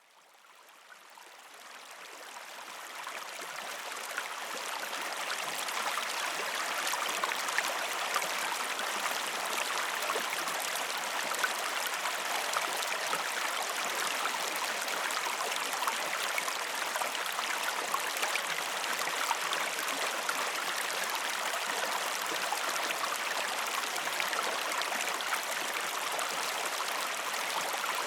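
Flowing stream: a steady rush of running water that fades in over the first five seconds or so, then holds even.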